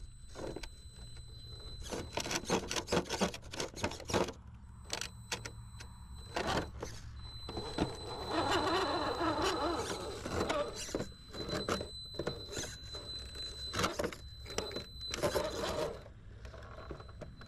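Comp-style RC rock crawler climbing sandstone boulders: its electric motor and drivetrain whine with a steady high tone that stops and starts, under many sharp clicks and scrapes of the tyres and chassis on the rock. The running is loudest a little past a third of the way in, as the truck climbs straight over the rock.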